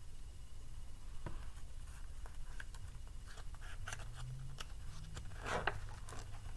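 Pages of a large hardcover picture book being handled and turned by hand: light paper clicks and rustles, with a louder rustle of the page swinging over near the end, over a low steady hum.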